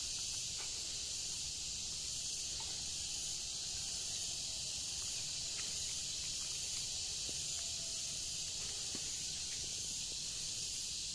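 Steady, high-pitched drone of an insect chorus, even and unbroken throughout, with a few faint clicks.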